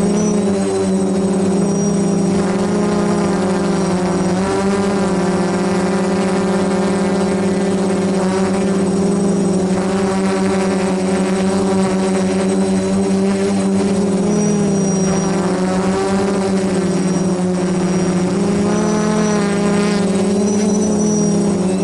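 F450 quadcopter's four electric motors and propellers running in flight, heard from the camera mounted on the drone: a steady loud buzz whose pitch wavers up and down a little as the motor speeds change.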